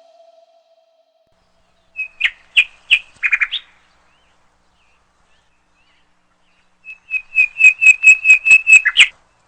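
A songbird calling: a few sharp chirps about two seconds in, then near the end a fast, even run of about a dozen identical high notes, loud against a dead-quiet background.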